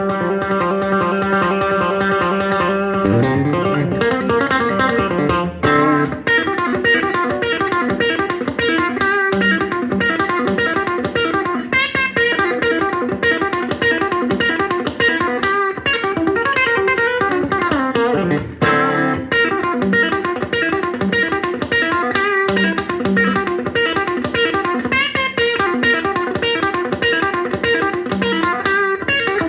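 Fender Telecaster electric guitar played chicken pickin' style. A held note rings for about three seconds, then it bends up into a fast, busy run of short snapped notes with pitch bends, a lick meant to sound like chaotic chickens running around.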